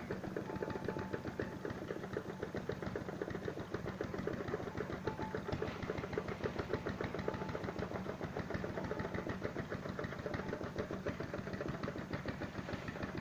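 A small engine running steadily with a fast, even beat and a constant low hum.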